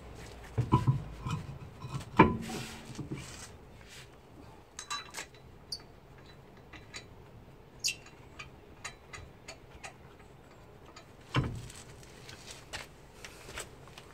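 Scattered metal clicks and clinks of wheel bolts and hand tools being worked at a car's wheel hub during a wheel change, with a few heavier knocks, the loudest about two seconds in and another near the end.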